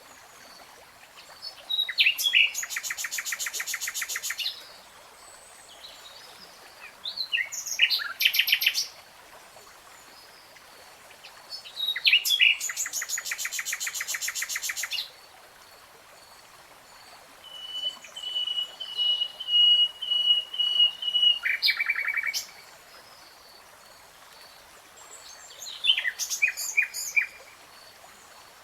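Nightingale singing in separate phrases a few seconds apart: fast trills of rapidly repeated notes, and in the second half one long, steady whistled note.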